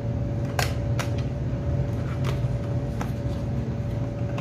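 Small cardboard box being opened by hand and its inner tray slid out of the sleeve: a few light clicks and scrapes of card, over a steady low hum.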